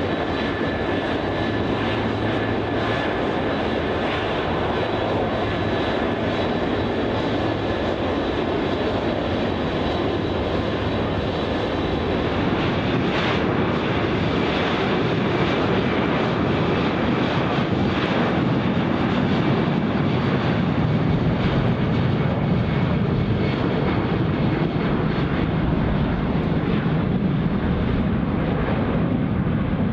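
Jet aircraft in flight: steady engine and rushing air noise with a faint steady whine. About halfway through it turns deeper and a little louder.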